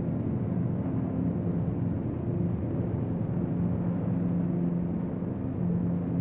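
Steady low droning rumble with faint humming tones that waver and fade in and out, a dark ambient drone from the film's sound design.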